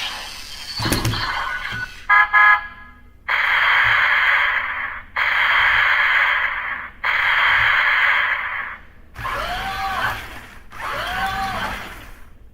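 Toy robot's built-in electronic sound effects from its small speaker: a short buzzing beep, then three long hissing blasts of about two seconds each, then two warbling tones.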